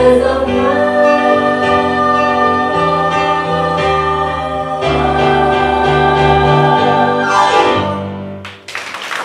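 Ensemble cast singing the long-held final chords of a musical-theatre opening number with instrumental backing, fading out about eight seconds in. Audience applause breaks out near the end.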